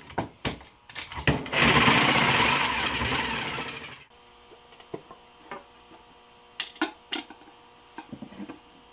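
Corded jigsaw cutting a circle out of a wooden board: a few knocks, then the saw running through the wood for about two and a half seconds until the sound cuts off suddenly. After that a faint steady hum with scattered small clicks as a screw is turned by hand with a screwdriver.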